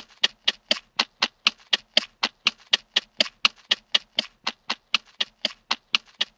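Sound effect of sharp, evenly spaced taps, about four a second, in a long steady run.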